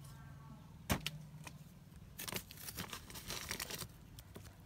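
Hands handling a dug-up strawberry plant and its soil: a sharp knock about a second in, a few light clicks, then a stretch of rustling and crackling, over a steady low hum.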